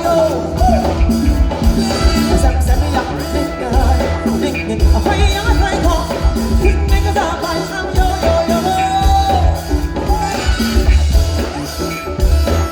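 Live band playing upbeat Afro-funk dance music with a steady drum and bass groove, with singing over it, heard through loud concert amplification.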